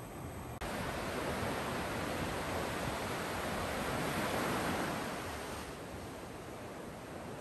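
Ocean surf breaking and washing up a sandy beach, a rushing hiss that jumps up about half a second in, swells to its loudest just past the middle, then fades.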